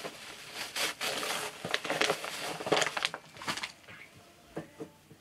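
Paper crinkling and tearing as a wrapped present is opened by hand, dense rustling for about three and a half seconds, then a few lighter rustles.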